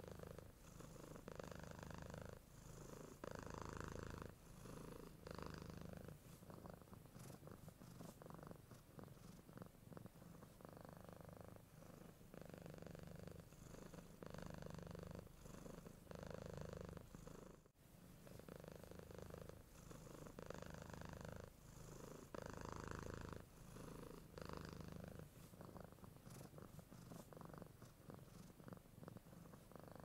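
Domestic cat purring quietly and steadily, the purr swelling and easing about once a second with its breathing. There is a brief break about 18 s in.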